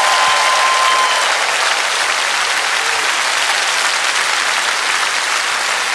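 Large theatre audience applauding steadily, welcoming a comedian who has just been announced onto the stage; the clapping eases slightly toward the end.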